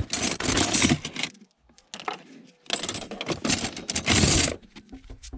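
Metal kitchen utensils clattering and jangling as they are rummaged through and handled, in two spells of rattling, the second starting about halfway in.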